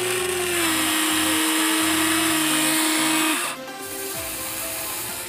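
Huina 1593 RC excavator's electric motors whining steadily as the arm lifts a bucket of soil, stopping about three and a half seconds in. Background music plays throughout.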